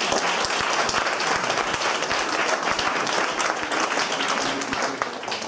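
Audience applauding: a dense patter of many hands clapping that dies down near the end.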